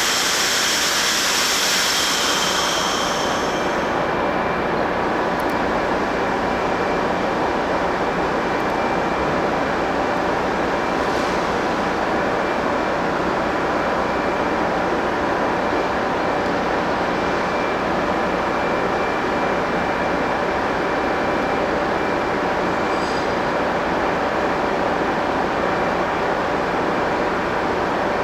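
A standing Taiwan Railway E400-series electric locomotive running its on-board equipment, a steady mechanical hum with a high whine. A high hiss in the first three or four seconds cuts off suddenly.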